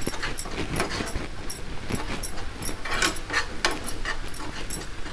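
Stirring a pan of red garlic-chilli chutney on the stove: irregular clicks and scrapes of the utensil against the pan, a few a second, over the cooking mixture.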